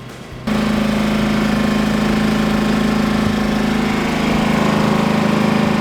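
An engine running steadily with a strong, even hum, coming in abruptly about half a second in.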